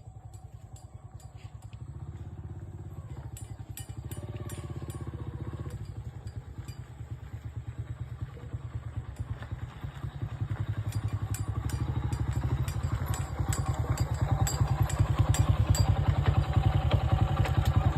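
Small petrol engine running with a rapid, even firing beat, growing steadily louder over the stretch, with light rattles and clicks over it.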